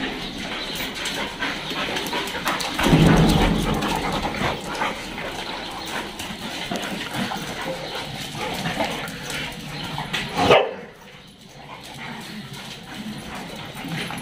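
A group of dogs playing and scuffling together, with dog vocalisations throughout. There is a loud low burst about three seconds in and a sharp loud sound about ten and a half seconds in, after which it briefly goes quieter.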